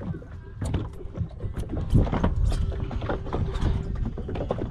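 Small waves slapping and lapping against the side of an open fishing boat, with irregular knocks and splashes over a low rumble.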